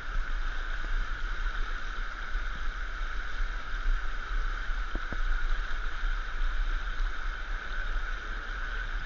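River rapids rushing over rocks close to the microphone, a steady hiss of fast-moving water with a low rumble underneath.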